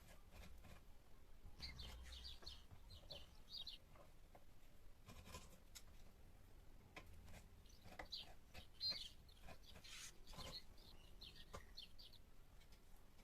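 Faint bird chirping in two short spells of quick chirps, with a few soft clicks.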